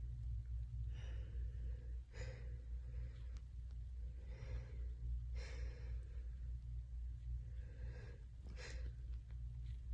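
A person with a cold taking about five breathy, hitching breaths, a few seconds apart: the build-up and false starts before a sneeze that does not yet come. A steady low hum runs underneath.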